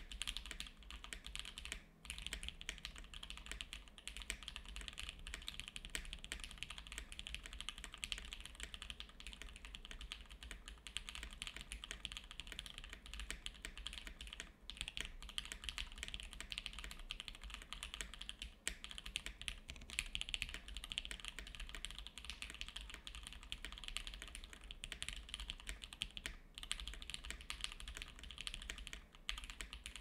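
Continuous typing on a 7V custom mechanical keyboard with Alpaca V2 linear switches lubed with 205g0, GMK keycaps, a polycarbonate plate and gasket mount. The keystrokes come in a dense, even stream, broken by a few short pauses.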